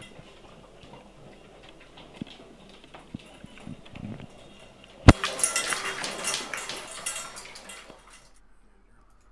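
Spaniels eating stew from metal bowls on a wooden floor: soft clicks and clinks at first, then a sharp knock about five seconds in and about three seconds of loud clattering and scraping at the bowls, which stops suddenly.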